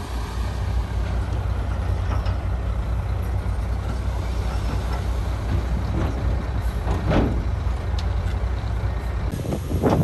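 Heavy diesel engines of a LiuGong B160C crawler bulldozer and a dump truck running steadily while the truck tips its load of soil, with a few brief rattles partway through and near the end.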